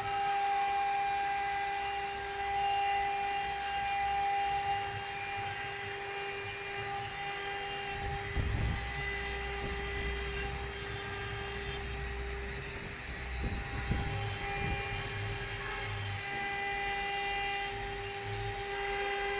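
CNC stone engraving machine's spindle running with a steady high-pitched whine, a low rumble rising under it for several seconds in the middle.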